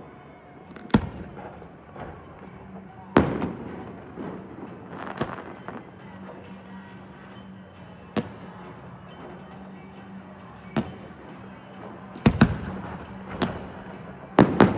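Fireworks shells bursting overhead, about ten sharp booms at irregular intervals, each trailing off in a rumbling echo; the loudest comes about three seconds in, with a quick cluster near the end.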